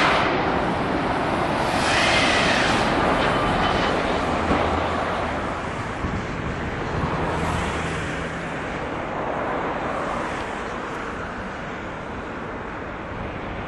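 Jet engine noise from a Boeing 757-200's Rolls-Royce RB211 engines on final approach: a steady roar that slowly fades as the airliner moves away, with a brief whine that rises and falls about two seconds in.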